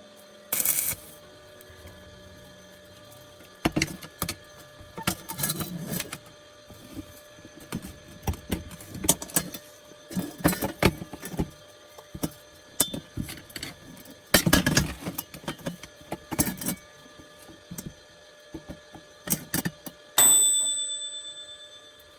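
Scattered knocks, taps and clatter of objects being handled. Near the end comes a single bright metallic ring that fades over about two seconds.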